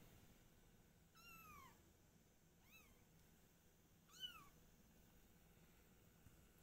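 A cat meowing three times: faint, short, high-pitched meows about a second and a half apart, the last the loudest.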